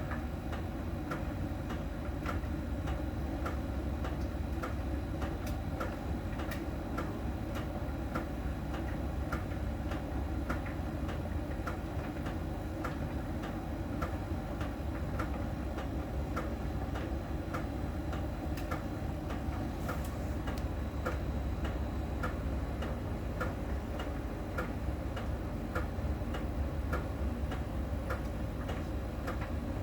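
Miele tumble dryer running, with steady, evenly spaced ticks over the low hum of the turning drum. The uploader attributes the ticking to a small round sensor ball that rolls over the rotating drum and ticks when it meets a contact spot on the drum's outer surface.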